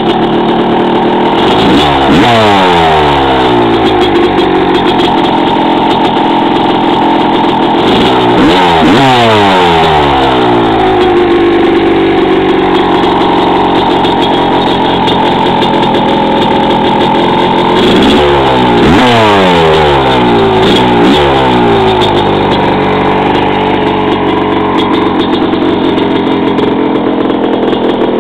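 1998 Yamaha YZ250's two-stroke single-cylinder engine, freshly rebuilt with a one-over Wiseco piston in a honed cylinder, running through a Fatty pipe: idling, blipped up in short revs several times and dropping back to idle between them.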